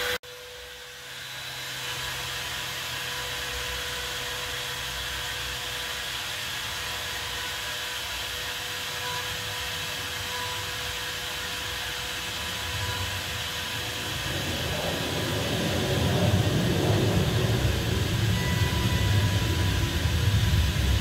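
Makita trim router on a CNC machine running steadily as it carves wood, with a thin steady whine. From about two-thirds through, a low rumble of jet aircraft flying over rises and grows louder.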